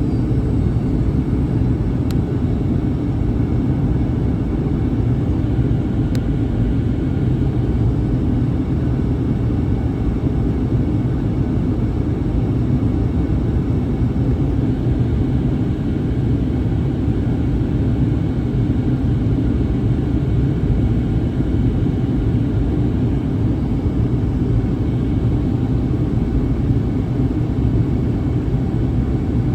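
Steady engine and airflow rumble inside the cabin of a Boeing 737-800 in flight, even and unbroken, heaviest in the low end.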